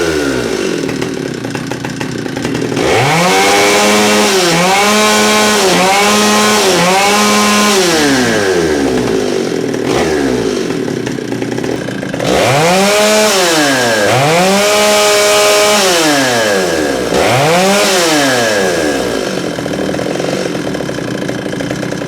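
Stihl 048 AV two-stroke chainsaw running after starting, its engine revved again and again. It drops to idle, is throttled up and held high with quick dips for a few seconds, settles back to idle, then revs up and down in several more rises and falls.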